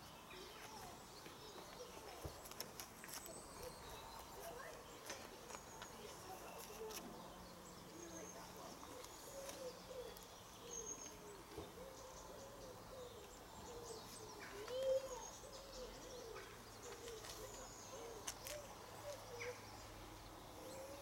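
Faint birds calling: repeated low arching calls and higher chirps. From about halfway in, a faint low steady drone comes in underneath, from a distant diesel train approaching.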